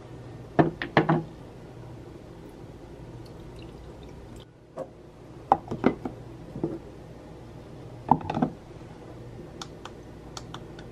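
Essential-oil diffuser being filled and assembled by hand: a few drips and light plastic clicks and knocks in short clusters as the lid goes on and the base is handled, over a faint steady hum.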